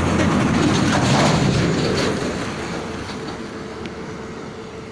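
A heavy vehicle passing close by. Its noise swells to a peak about a second in, then fades away over the next few seconds.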